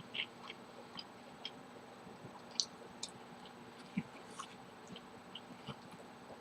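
Faint, close-miked chewing of food, heard as scattered soft mouth clicks and smacks.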